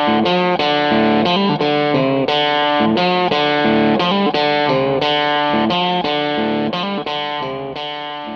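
Background music: a distorted electric guitar playing a steady, rhythmic riff, fading out near the end.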